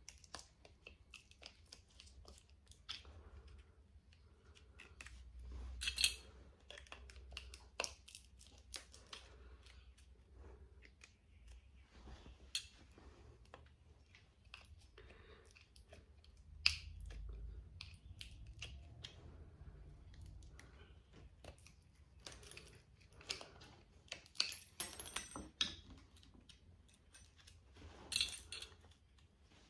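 Faint, irregular clicks, scrapes and crunches of a screwdriver prying the steel lamination fins off a light ballast's copper coil, with a few sharper metal clicks along the way.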